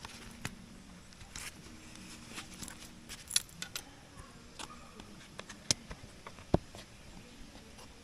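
Scattered light clinks and knocks of camp cookware being handled, a few sharper ones about three seconds in and again near the end.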